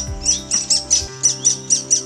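Great spotted woodpecker nestlings begging from the nest hole: a steady, rapid string of sharp high calls, about four a second, the sign of hungry young waiting to be fed. Sustained background music chords sit underneath.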